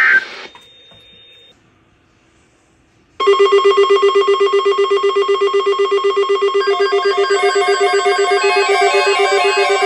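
Several NOAA weather alert radios going off for a severe thunderstorm alert. A short warbling data burst and a brief high beep come first. About three seconds in, a loud rapid pulsing of electronic alarm beeps starts, and more tones join as further radios sound.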